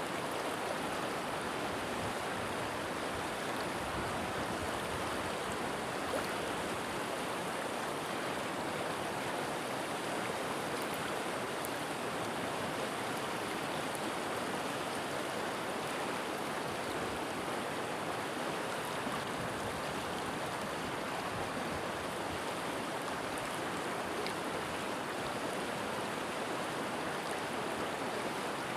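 River water flowing over rocks, a steady rushing babble.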